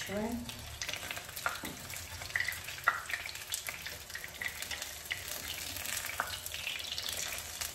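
Meat-filled dough patties (belyashi) frying in hot oil in a frying pan: a steady sizzle with scattered crackling pops, along with the scrape and clink of a utensil as the patties are turned over.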